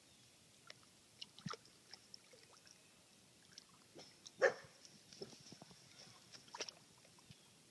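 A dog gives a short whine about halfway through, with a briefer one shortly after, over scattered faint clicks.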